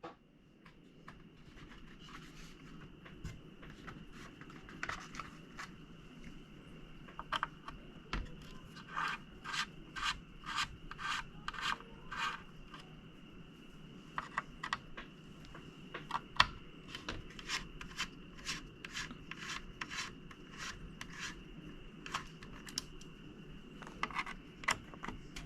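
A series of short rubbing or scraping strokes, sparse at first and then about one to two a second from about seven seconds in, over a faint steady high tone and a low hum.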